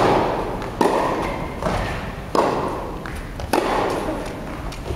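Tennis ball being hit back and forth in a rally on an indoor hard court: a string of sharp racket strikes about every second or so, each followed by a long echo in the hall.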